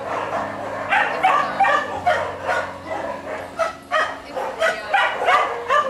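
Dogs barking and yipping, short high calls following one another several times a second.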